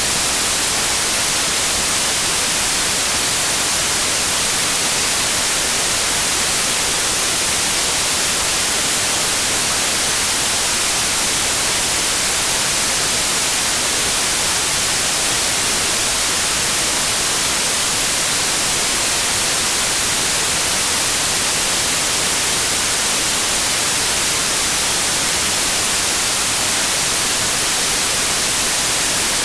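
Steady white noise: an even, unchanging hiss that is strongest in the high frequencies.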